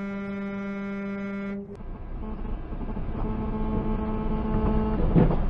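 A vehicle horn held in one steady tone, cut off abruptly about a second and a half in. Then low road and engine rumble from a vehicle driving, with a fainter steady horn-like tone for a few seconds and a short knock near the end.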